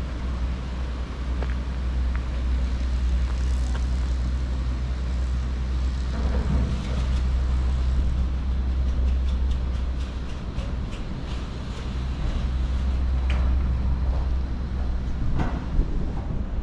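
Garaventa six-seat chairlift running, heard from the chair: a steady low mechanical rumble with a faint hum. From about eight seconds in, a run of quick light clicks follows, with a few sharper knocks near the end.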